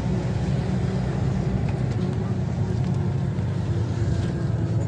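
Scania OmniLink city bus driving, heard from inside the passenger cabin: a steady low engine drone with an even hiss of tyres on the wet road.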